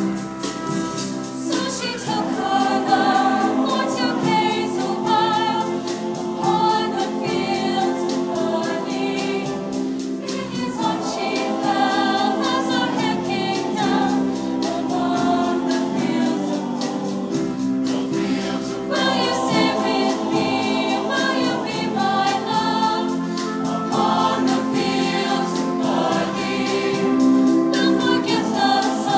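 Show choir singing in harmony, holding long notes with vibrato in phrases of several seconds.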